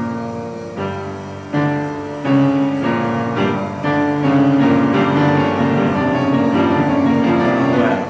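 Background piano music: sustained chords that change every second or so, growing louder about two seconds in, then stopping abruptly.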